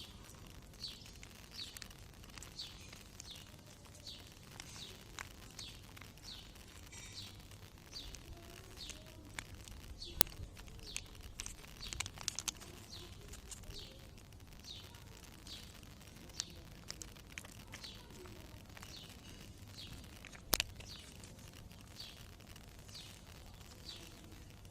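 A bird calling faintly and steadily, a short falling chirp repeated about every two-thirds of a second, with two sharp clicks, one near the middle and one later on.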